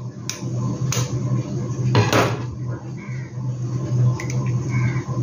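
A kitchen knife knocking against an eggshell to crack it: a few sharp taps in the first two seconds or so, the loudest about two seconds in. A steady low hum runs underneath.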